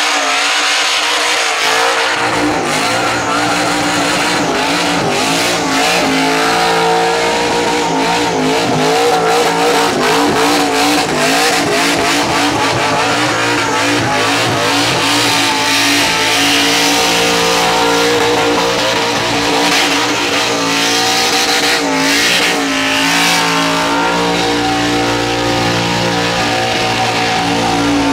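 Supercharged, fuel-injected Holden Commodore burnout car running at high revs. The engine note wavers up and down while the rear tyres spin and squeal against the pad.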